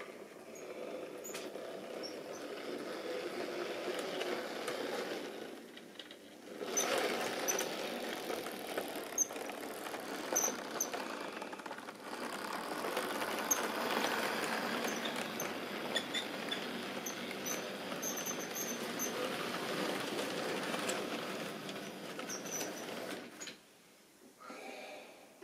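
OO-gauge model train (an electric locomotive hauling goods wagons) running along the track, a steady rattle with frequent clicks of the wheels over rail joints and points. It dips briefly about six seconds in and falls away near the end.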